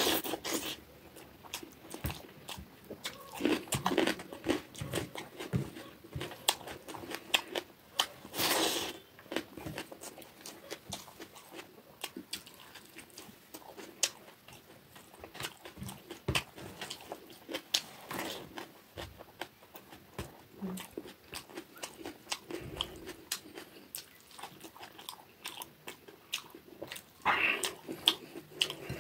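Close-up sound of a person eating rice and fish curry by hand, with irregular chewing and crisp crunching bites. It is louder about eight seconds in and again near the end.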